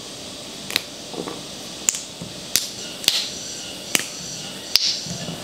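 Fresh green beans snapped into short pieces by hand, about six crisp snaps roughly a second apart.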